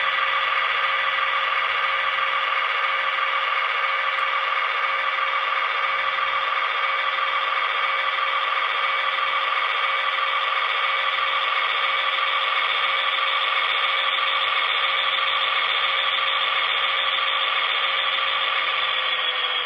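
Sound-decoder recording of an SD40-2's EMD diesel prime mover, played through an HO-scale model locomotive's small onboard speaker, running steadily under load as the model rolls. Its pitch eases down a little near the end as the decoder backs the engine off once the locomotive is rolling.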